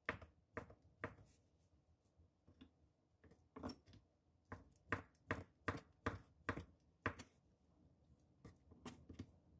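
Kitchen knife tapping on a wooden cutting board as imitation crab sticks are sliced into thin strips: a faint, irregular run of short taps, quickest in the middle.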